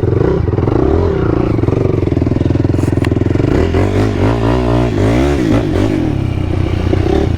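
Sport quad (ATV) engine running under throttle on a rough trail, its pitch rising and falling as the throttle is blipped, with a short knock about three seconds in.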